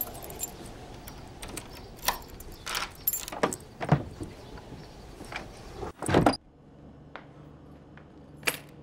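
A bunch of keys jingling and clicking at a door, then the door shutting with a loud thud about six seconds in. After it comes quieter room tone with a single click near the end.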